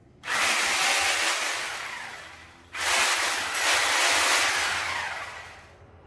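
Two bursts of a handheld power tool running, each starting abruptly and dying away over a couple of seconds.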